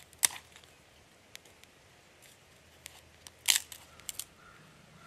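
Dry wood cracking with sharp snaps: one loud crack just after the start, a quick cluster of cracks about three and a half seconds in, and two smaller snaps soon after.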